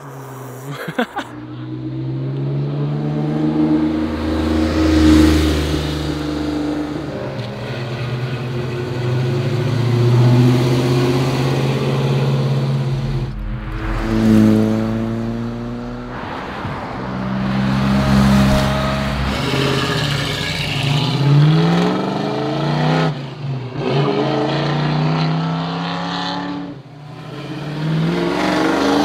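Car engines accelerating hard and shifting gears as cars drive past, each revving up and dropping back in pitch. The sound changes abruptly about 13 seconds in and twice more near the end; in the last stretch it is a carbureted small-block V8 in a 1965 Ford Mustang.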